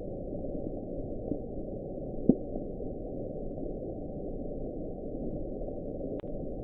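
Dull, muffled background ambience, a steady low noise with no clear source, with one short tick about two seconds in.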